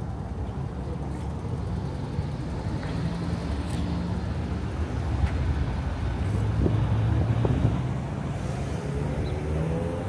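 City street traffic, led by a box truck's engine running close by as it creeps forward, its low hum growing louder about two-thirds of the way through and easing off after. A few faint clicks.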